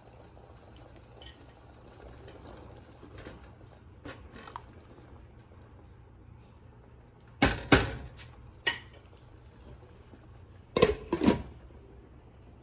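Kitchenware knocking and clattering: two quick pairs of sharp knocks about three seconds apart, with a single lighter knock between them, over a faint steady background.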